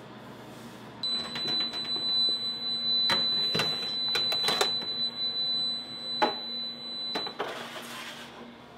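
Metal baking pans and oven racks clanking as a pan of baked loaves is slid out of a convection oven, over a steady high-pitched electronic alarm tone that starts about a second in and cuts off near the end.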